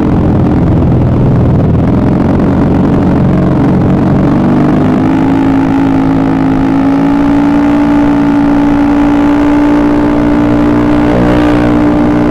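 Rebuilt Honda BeAT carburettor scooter's 110 cc single-cylinder engine running, its pitch rising about four seconds in and then holding steady.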